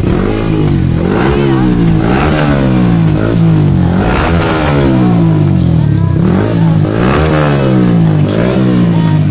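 A Yamaha R15 V3's 155 cc single-cylinder engine is revved several times through a Prospeed Black Carbon full-system aftermarket exhaust with a carbon-fibre muffler. On each throttle blip the pitch rises, then falls back toward idle.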